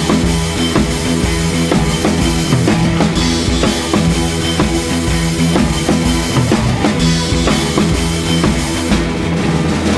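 Instrumental background music with a drum kit keeping a steady beat under a pitched bass line.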